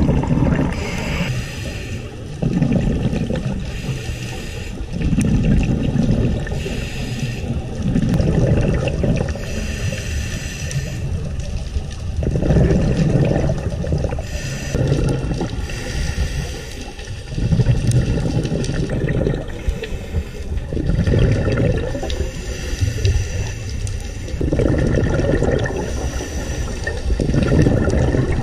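Scuba diver breathing through a regulator underwater: a hiss on each inhale, then a burst of exhaled bubbles, repeating about every two to three seconds.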